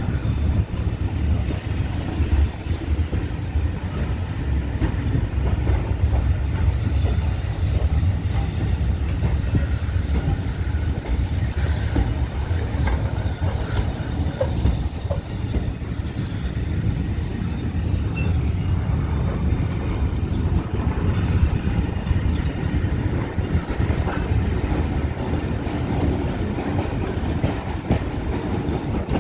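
Train passing over a level crossing: a steady low rumble of wheels on the rails, with scattered clicks and clatter throughout.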